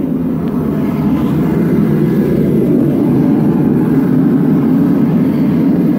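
Gas forge burner running with a steady low rush, growing louder over the first second as the forge is approached.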